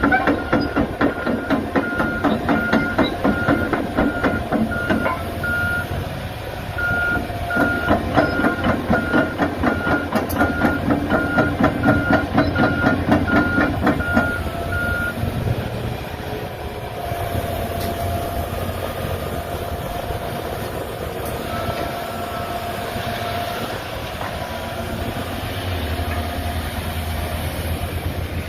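Deere 350G excavator running with its travel alarm beeping about twice a second over a rapid clatter. About halfway through, the beeping and clatter stop, leaving the machine running steadily.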